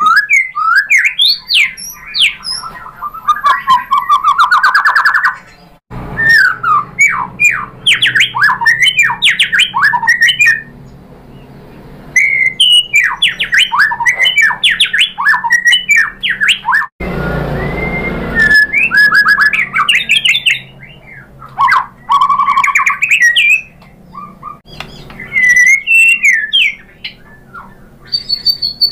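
White-rumped shama (murai batu) singing vigorously: fast runs of loud whistles and rapid trills that glide up and down, in bursts with short pauses between. About two thirds of the way through, a brief rushing noise with a low rumble breaks in for a second or so.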